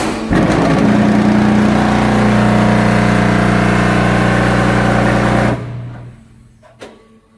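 Zenith 1500 concrete block machine compacting a mould: a loud, steady vibrating hum that starts abruptly and cuts off about five and a half seconds in, followed by a few light knocks as the cycle moves on.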